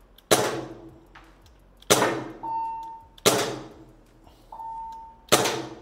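Cybergun PT92 CO2 airsoft pistol firing four single shots, about one and a half seconds apart, each a sharp crack that dies away quickly. A brief high ringing tone follows two of the shots.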